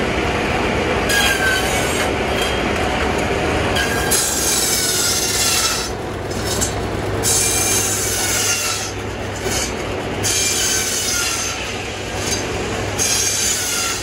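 Shingle mill circular saws cutting wooden shingles from blocks, a cut every two to three seconds, each with a high whine that drops in pitch as the blade takes the wood, over the steady hum of the running mill.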